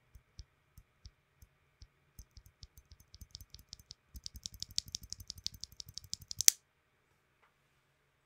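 A single stock, unlubed Kiwi tactile key switch in a UHMWPE housing, pressed and released by hand close to the microphone. The clicking is slow at first, then speeds up into a rapid flurry of presses. It ends on one loudest clack about six and a half seconds in.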